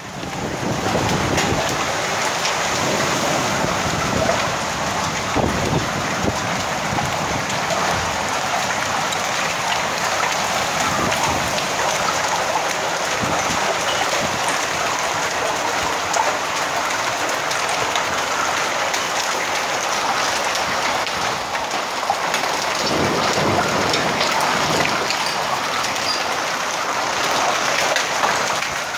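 Heavy rain mixed with hail pouring down on the street and rooftops: a loud, steady hiss dotted with many small hits.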